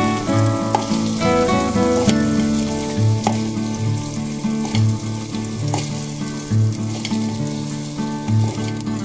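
Sausage slices sizzling in hot oil in an Instant Pot's stainless inner pot as a slotted spoon scoops them out, over instrumental background music with a slow, steady low beat.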